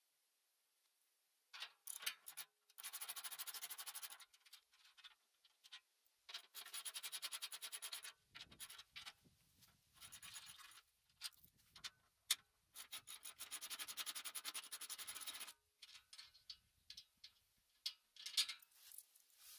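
Socket ratchet wrench clicking rapidly in three long runs while turning the bolts of a garden shredder's rotor-housing cover, with scattered single clicks and light metal knocks between the runs.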